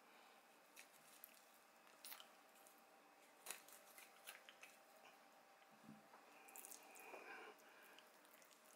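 Faint handling sounds of a kitchen knife slitting open a salmon's belly and fingers working in the wet flesh and roe, with a few light clicks.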